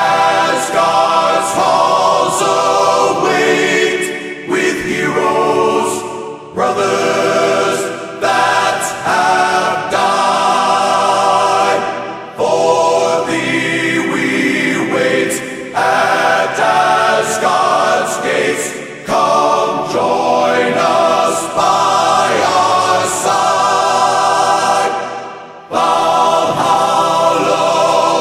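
A choir singing long held chords, phrase after phrase, with brief breaks between the phrases.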